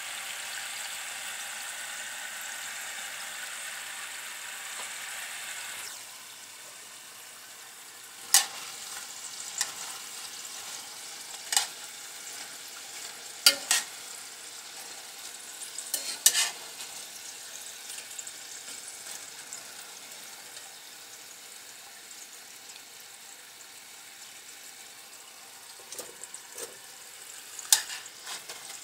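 French fries sizzling in hot oil in a small stainless steel saucepan with the burner turned off, a steady hiss that drops in level about six seconds in. Metal tongs clink sharply against the pan several times as the fries are stirred.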